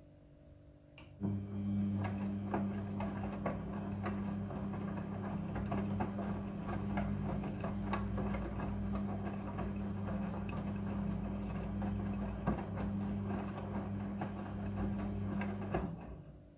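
Front-loading washing machine drum turning during the wash cycle: the motor starts with a click about a second in and hums steadily while the wet laundry tumbles with many small knocks, then stops shortly before the end.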